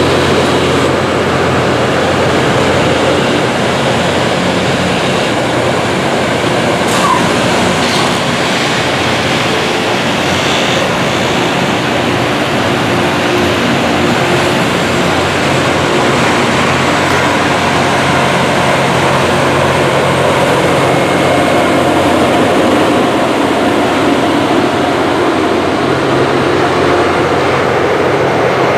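Loram rail grinder train at work, its grinding stones running on the rails in a loud, steady grinding rush over the low, even hum of diesel engines.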